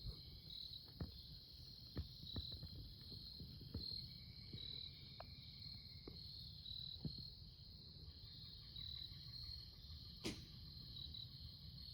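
Faint, steady chorus of insects chirping in a high-pitched, pulsing rhythm, with scattered soft clicks and one sharper crack about ten seconds in.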